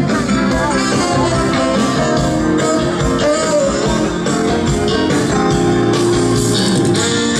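Live band playing at full volume with guitar prominent, in a rock style, as part of a sound check.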